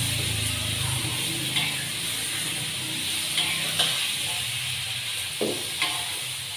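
Green vegetables stir-frying in a wok, a steady sizzle, with a spatula knocking and scraping against the pan about five times.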